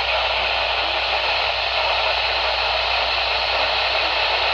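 A radio receiver hissing with steady static.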